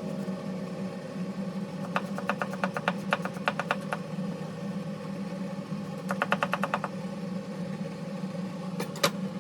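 Two quick runs of rapid tapping from kitchen utensils, about seven taps a second, over a steady hum, with a couple of sharper clicks near the end.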